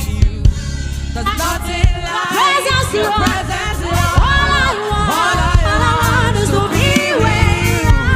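Live gospel worship music: several singers holding and sliding long, wavering melodic lines over a steady low bass and sharp drum-like hits.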